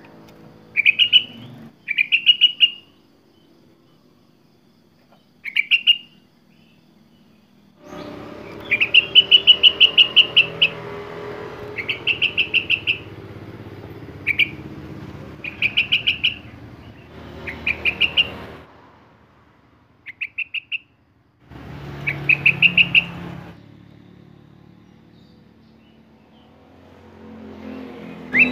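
Caged sooty-headed bulbul (kutilang) singing in about ten short bursts of rapid, high chattering notes with pauses between them. The longest run comes about a third of the way in. A low background hum comes and goes under some of the phrases.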